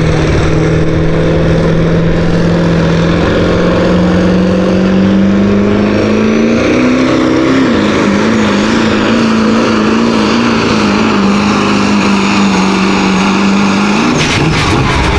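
Diesel pickup truck engine at full throttle pulling a weight-transfer sled. Its steady drone climbs in pitch over the first several seconds, then wavers rapidly up and down. About fourteen seconds in, the engine note jumps briefly and cuts off, followed by a few sharp clicks.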